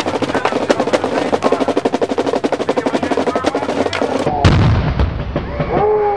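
A rapid snare drum roll, then a single loud boom about four and a half seconds in as the human cannonball cannon fires, followed by music.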